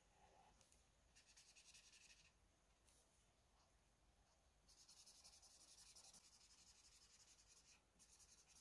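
Faint scratching of a felt-tip marker colouring on paper: a short run of strokes about a second in, a longer run from about five seconds to nearly eight, and another near the end.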